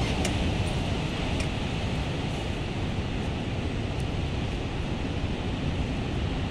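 Ocean surf breaking on the beach: a steady rush of waves with wind rumbling on the microphone.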